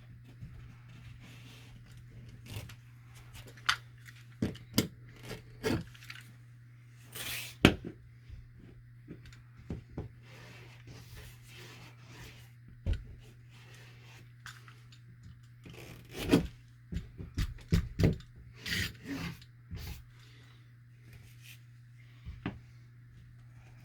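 Mesh drywall tape being pulled off the roll, pressed onto the wall over the patch and cut, in scattered short rustles and sharp clicks over a steady low hum.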